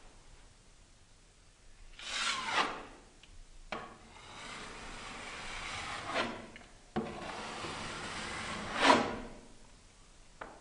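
Steel putty knife scraping fresh drywall compound off a patched nail hole, skimming the mud flush with the wall. There are three strokes: a short one about two seconds in, then two long drawn-out passes, the last ending in the loudest scrape near the end, with a light tick of the blade between the first and second.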